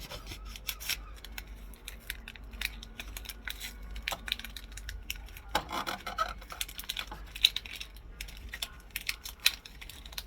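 Handling noise as a toy cap gun is brought out: rubbing and rustling with many small irregular clicks and scrapes, and a couple of sharper clicks in the second half.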